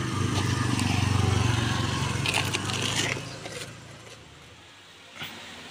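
A motorbike engine idling steadily, with some rustling and scraping over it. About three seconds in it gives way to quiet room tone, broken by a single short knock near the end.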